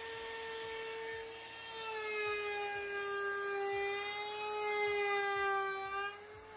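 Black & Decker router running with a steady high whine while trimming the edge of pallet-wood boards; its pitch sags slightly and it gets louder from about two seconds in as the bit cuts into the wood. It cuts off near the end.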